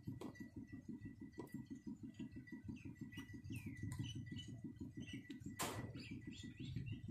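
Faint handling noises of PVC pipe and a roll of tape, small clicks and knocks, with one short louder rasp a little before the end, over a steady low rapid pulsing hum and a faint steady high tone.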